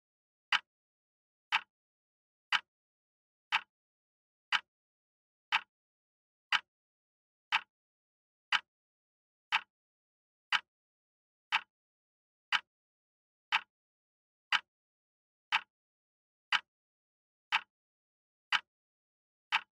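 Countdown-timer sound effect: a short, sharp tick once a second, evenly spaced, with silence between the ticks.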